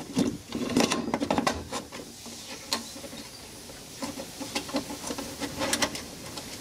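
Plastic clicks and rattles as a drive's plastic case and small wire connectors are handled and pushed back onto its circuit board, busiest in the first two seconds, then a few scattered clicks.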